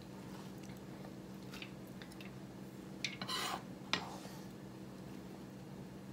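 Quiet kitchen handling after julienning carrots: a few light taps and one brief scrape of a kitchen knife and hands clearing carrot strips off a plastic cutting board, about three seconds in, with a small knock just after. A steady low hum underneath.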